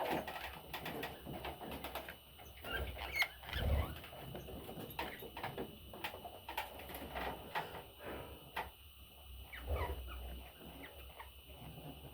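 Budgie scratching, pecking and moving about: scattered small clicks and scratches, with a few brief high chirps about three seconds in.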